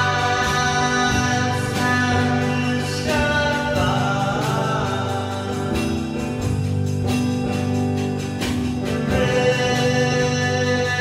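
Song: singing over sustained instrumental chords.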